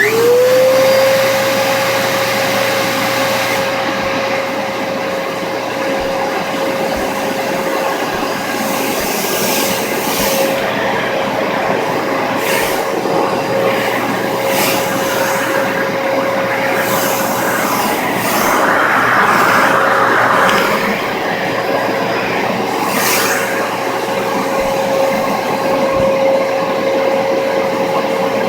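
Dyson DC33 upright vacuum cleaner switched on: its motor spins up within half a second to a steady whine over a rush of air and keeps running. The airy hiss surges briefly now and then.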